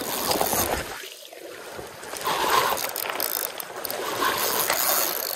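Spinning reel working against a hooked king salmon: the handle cranked and the reel's mechanism clicking ratchet-like in uneven spells, with a short lull about a second in, over the rush of river current.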